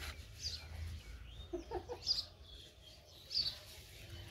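Birds calling: short high chirps repeating about every second, with a few low clucking calls about a second and a half in.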